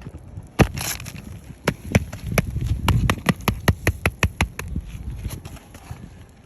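A quick, even series of sharp knocks, about four a second, over a low rumble. The knocks fade out after four or five seconds.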